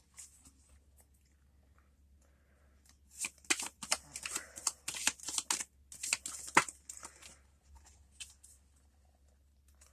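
Tarot cards being shuffled by hand: a run of quick, crisp papery snaps and flicks starting about three seconds in and dying away around four seconds later.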